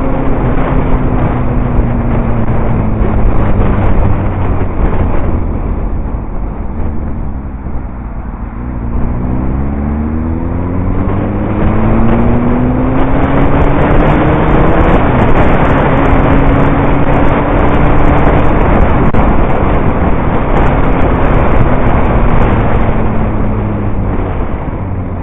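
Motorcycle engine heard from the rider's helmet amid wind rush. The engine note falls as the bike slows, then rises about nine seconds in as it accelerates. The wind rush grows loud at speed and eases near the end as the engine note drops again.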